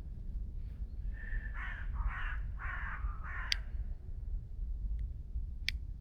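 A crow cawing: about four harsh caws in quick succession from about a second in, followed by two sharp cracks, one as the caws end and one near the end.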